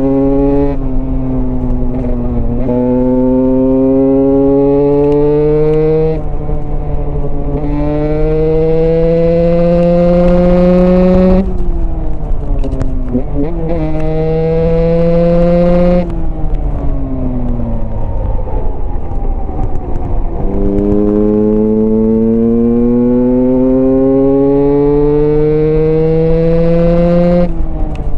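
Husqvarna enduro motorcycle's single-cylinder engine pulling hard, its pitch rising steadily through each gear and dropping sharply at each upshift, about every two to four seconds. Around the middle the revs fall away as the bike slows, with a quick blip and a dip, then it climbs through the gears again.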